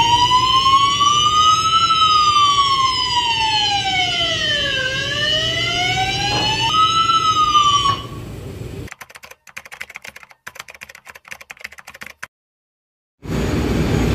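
A ship's fire emergency alarm sounder sounding general alarm. A slow wail rises and falls in pitch over a steady high tone, then cuts off about eight seconds in. After a few seconds of faint crackle and a brief silence, a steady low noise comes in near the end.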